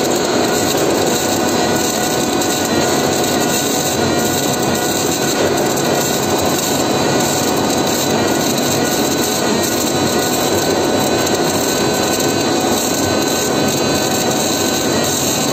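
Welding arc of an automatic narrow-gap welding machine burning steadily deep in the weld groove: a loud, continuous, dense crackling hiss.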